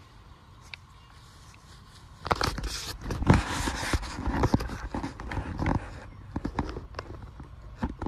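Hand digger chopping and scraping into soil, recovering a metal-detector target: loud crunching and knocking that starts about two seconds in and eases off after about six seconds, with scattered clicks before and after.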